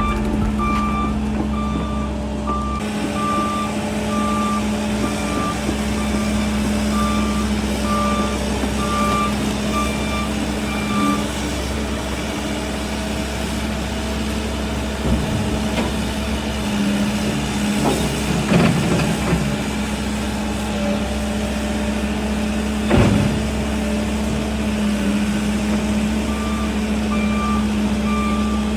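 Cat 308 excavator's diesel engine running steadily, with its travel alarm beeping at a steady pace for the first third and again near the end while the machine tracks. A few sharp knocks and cracks come through in the middle as the machine works.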